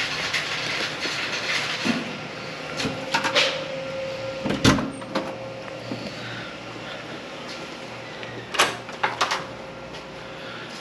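Hotel room door being opened and walked through: scattered clicks and knocks from the handle and latch, the loudest a sharp knock about halfway through, and a few more clicks near the end.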